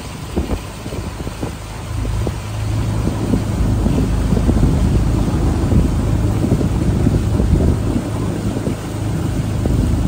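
Engine of a narrow wooden river boat running steadily under way, a low hum with wind buffeting the microphone; it grows louder about two seconds in.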